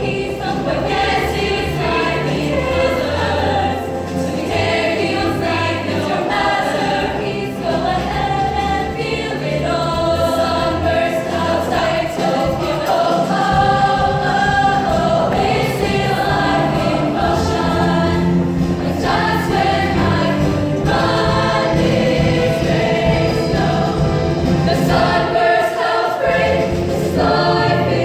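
All-female show choir singing in harmony over instrumental backing with a low bass line.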